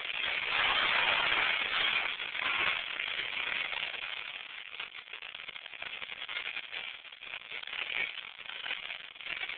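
Arena crowd cheering and shouting, picked up by a cellphone's microphone that makes it sound thin and crackly. It is loudest in the first couple of seconds, then eases off.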